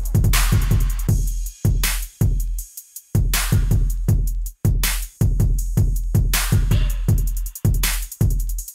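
Electronic background music with a heavy drum-machine beat and deep bass, breaking off briefly about three seconds in.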